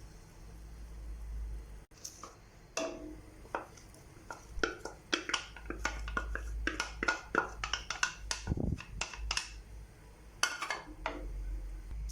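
Kitchen dishes and utensils clattering: a run of quick knocks and clinks, densest in the middle, with a few more near the end.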